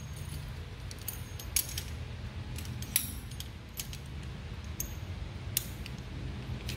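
Scattered light metallic clinks and clicks of hand tools and small steel parts being handled, over a low steady hum.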